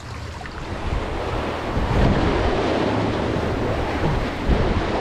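Wind buffeting the microphone over a steady wash of sea water, growing louder about a second in.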